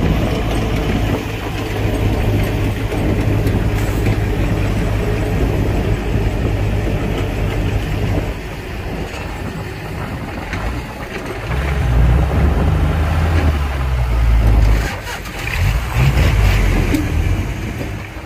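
Heavy earthmoving machinery at work, an excavator and a dump truck, with a steady low diesel engine drone. It eases off about eight seconds in, then revs up louder for a few seconds before settling, with a few knocks near the end.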